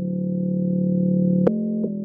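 Novation Circuit Tracks synth engine playing a preset: a held low note with a slight pulsing in loudness that steps to a new pitch about one and a half seconds in, with a soft click at the note change.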